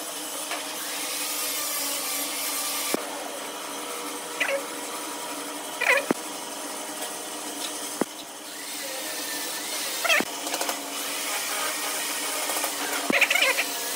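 Small pine blocks knocking and clacking on a wooden board as they are set down and fitted into place by hand, a few sharp knocks several seconds apart and a quick cluster near the end. A steady mechanical hum runs underneath.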